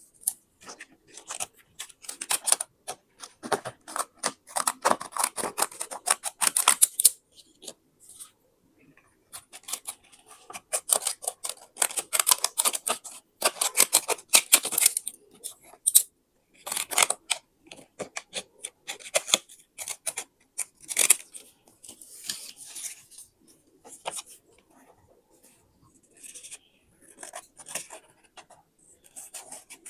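Scissors cutting paper in runs of quick, crisp snips, with short pauses between runs.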